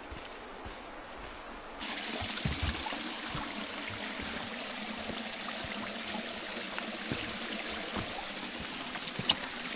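Water running and trickling in a small stream, a steady hiss that comes in suddenly about two seconds in, with a few light knocks and a sharper one near the end.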